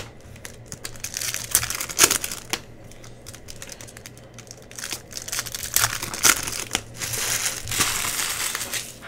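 Trading-card pack wrappers being handled, crinkling and crumpling with scattered sharp crackles, thickest near the end.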